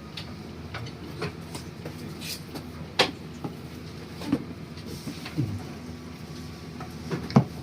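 Irregular clicks and knocks of computer hardware being handled during a PC build, over a steady low hum. The sharpest knocks come about three seconds in and again near the end.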